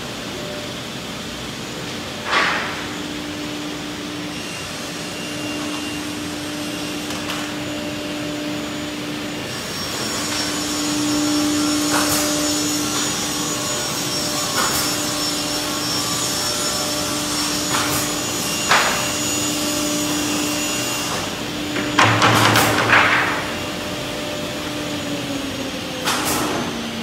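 Woodworking workshop machinery running steadily with a constant hum, with sharp wooden knocks and bangs now and then, the loudest a quick cluster near the end.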